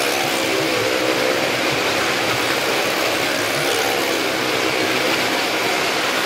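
Car engine running at a steady speed, with a continuous noisy rumble, as the car drives round the wooden wall of a well-of-death pit.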